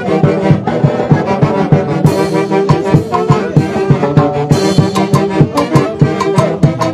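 Festive dance music from a band of wind instruments, with horns holding melody lines over a steady, evenly spaced drum beat.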